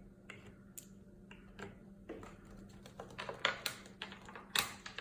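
Light clicks and taps of small hard pieces being set out and handled on a hard surface, scattered at first and coming quicker from about three seconds in, over a faint steady hum.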